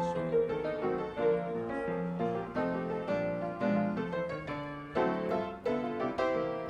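Background piano music: a gentle melody and chords played note by note.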